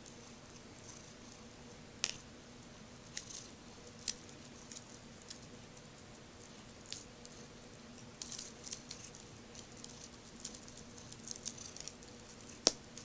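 Scattered light clicks and taps, a few at a time, over a faint steady electrical hum, with a sharper click near the end.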